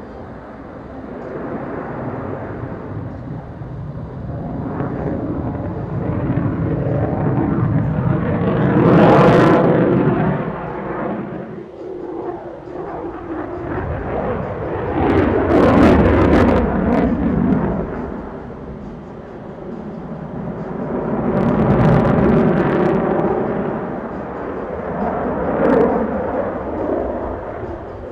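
An F-22 Raptor's twin afterburning turbofan engines roar as the jet manoeuvres overhead. The sound swells and fades four times as it passes and turns, with a sharp crackle at each of the loudest moments.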